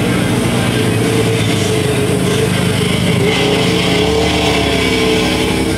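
Car engines running steadily, their pitch rising and falling slightly in the second half.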